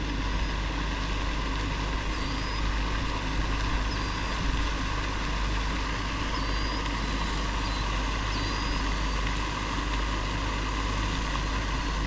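Steady rushing outdoor noise with a low rumble, and a few faint, short high chirps of small birds scattered through the middle.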